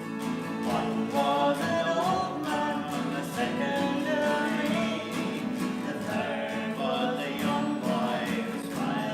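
Background music: a song sung over plucked acoustic guitar.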